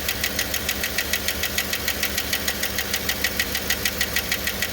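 2008 GMC Yukon's 5.3 V8 idling with a rapid, even ticking from the valvetrain. This is lifter noise, traced on teardown to one lifter stuck down in its bore.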